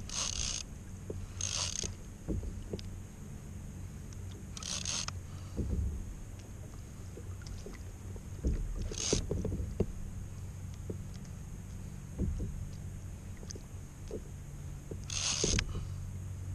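Fishing reel, rod and kayak handled during a fight with a hooked fish: light knocks and clicks, with five short high hissing bursts a few seconds apart, over a steady low hum.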